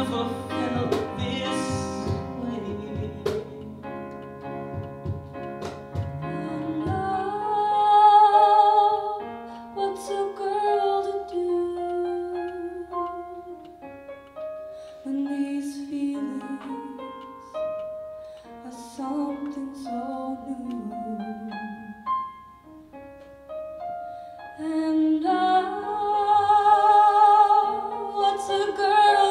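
A live musical-theatre song: a woman singing held notes with vibrato over an accompaniment.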